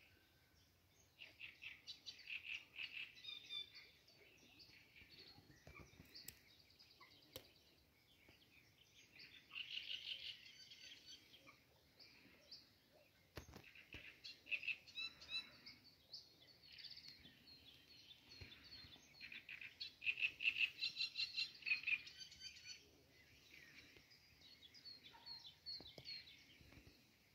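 A small songbird singing in several separate phrases of quick repeated notes, with quieter gaps between them.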